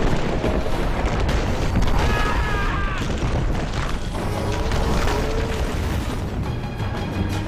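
Battle soundtrack of an animated film: orchestral music mixed with deep booms and a continuous low rumble.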